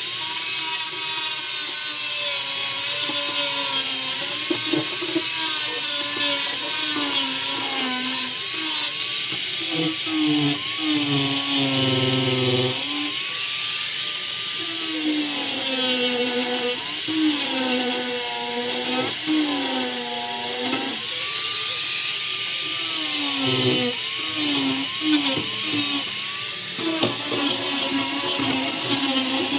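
Corded angle grinder running under load, grinding down old fiberglass and filler inside a boat hull. Its motor pitch sags and recovers over and over as the disc is pressed in and eased off.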